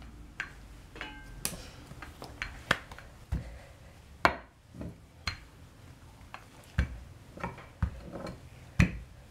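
Rolling pin knocking and rumbling on a countertop as dough is rolled out: irregular sharp knocks, roughly one a second, the loudest about four seconds in and near the end.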